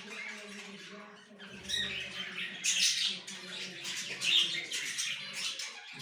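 Several birds squawking and chattering in short, harsh calls, loudest a little before halfway and again about two-thirds through.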